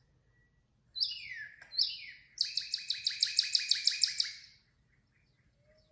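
Male northern cardinal singing: two clear down-slurred whistles, then a quick run of about fifteen repeated notes lasting some two seconds.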